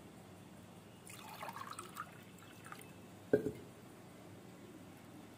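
Faint drips of water falling into a stainless steel pot partly filled with water, with one louder, sharper drop about three seconds in.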